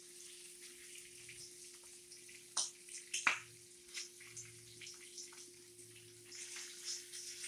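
Bacon and sausage frying together in a pan, crackling and spitting with irregular pops; two sharper pops come about two and a half and three seconds in. A steady low hum runs underneath.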